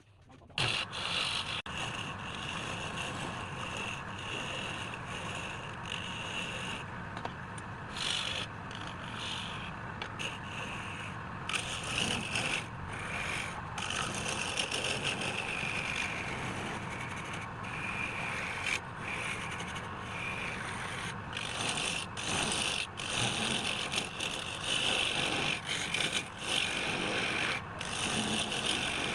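A tool rubbing and scraping against wood, steady with many brief breaks where the contact lifts off.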